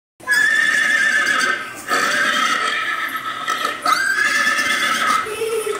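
Horse whinnying three times in a row, each a long quavering neigh, played back from a television's speaker as an animal-sound recording.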